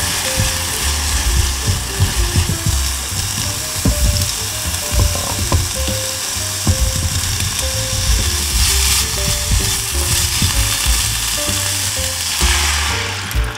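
Sliced onion and chicken-breast cubes sizzling in a hot frying pan with soy sauce, a steady frying hiss. Near the end water is poured in and the sizzle suddenly dies down.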